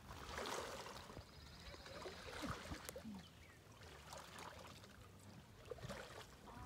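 Faint splashing of a kayak paddle dipping into calm lake water, stroke after stroke.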